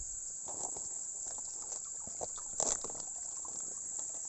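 Steady high-pitched chirring of a cricket chorus, with small water splashes and sloshing in the shallow river and one louder splash about two and a half seconds in.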